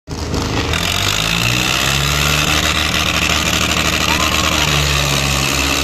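Tractor diesel engine running loud and steady, its pitch stepping up and down as the throttle changes, over the noise of a large crowd.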